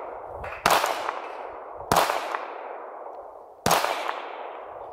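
Three 9×19 mm pistol shots from a Norinco copy of the Glock 17, fired at uneven intervals: about two-thirds of a second in, near two seconds and about three and a half seconds in. Each shot has a long ringing echo. The pistol is cycling without a stoppage on Barnaul semi-jacketed rounds.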